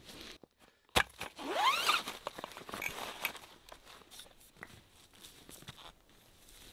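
A sharp click about a second in, then a zipper pulled open along a long nylon carry bag, its pitch rising over under a second. Rustling and light clicks of the tent pole being handled follow.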